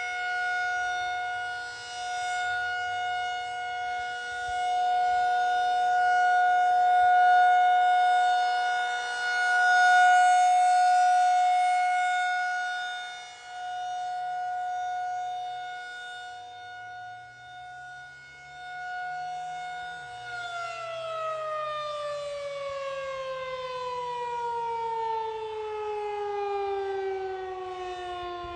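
Federal Signal 2001 rotating electromechanical tornado siren sounding a steady tone, its loudness swelling and fading as the head turns. About 20 seconds in it powers down, the pitch sliding steadily lower as the rotor winds down.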